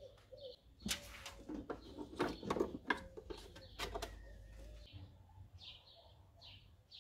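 A string of sharp clicks and knocks from handling under the open hood in the first three seconds, then a bird chirping repeatedly in short high calls through the second half.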